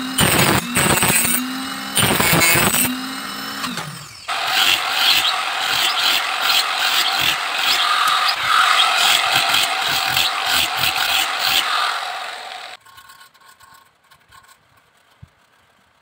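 A table-mounted rotary power tool shapes the edge of a bamboo frame. Its motor hum is broken by the bit biting in, then falls as the tool spins down. About four seconds in, a handheld angle grinder starts running steadily at full speed and cuts off sharply after about eight seconds, leaving only faint light taps.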